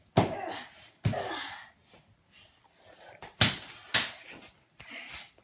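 Hammer blows on a stuffed toy lying on a hard floor: about five sharp thuds, unevenly spaced, with two close together past the middle.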